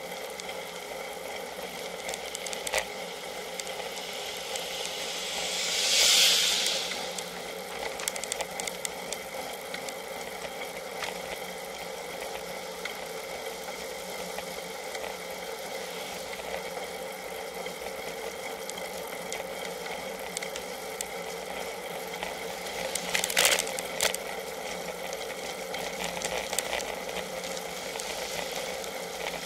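Steady hum and rattle from a rear-facing Cycliq bike camera on a road bike. About six seconds in, a vehicle passing from behind gives a whoosh that swells and fades. A cluster of sharp rattles comes near the 23-second mark.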